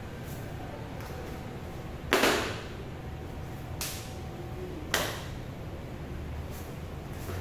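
Arnis stick swung in fast strikes through an arnis form: two sudden swishes, about two and five seconds in, the first the louder. A steady fan hum runs underneath.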